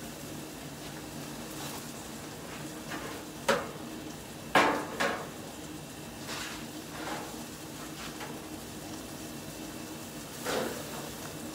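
Metal clanks at a gas barbecue grill, from its lid and a cooking utensil on the grate: one sharp knock about a third of the way in, two more close together a second later, and another near the end.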